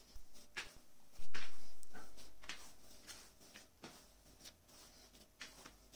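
Hands kneading a soft, oily dough on a plastic board: irregular short squelches and light taps, one louder about a second in.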